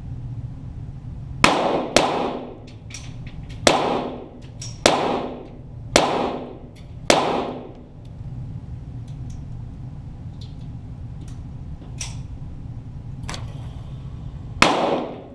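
.22 Walther GSP target pistol shots heard from down by the targets: six shots in about six seconds, then one more near the end, each echoing briefly off the range walls.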